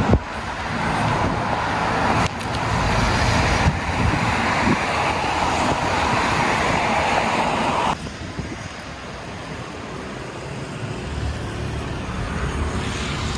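Road traffic on a city street, a steady rush of passing vehicles that drops suddenly to a quieter hum about eight seconds in.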